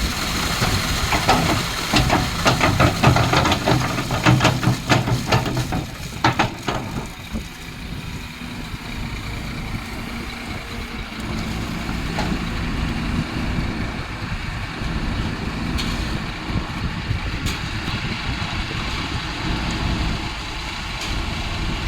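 Heavy diesel engine of a Kobelco excavator running steadily. Over the first several seconds a dense run of sharp knocks and rattles sits on top of it, then the engine carries on alone.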